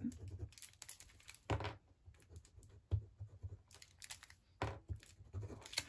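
A handful of light taps and knocks on a desk, a second or so apart, as a plastic liquid glue bottle that has run out is handled and set down.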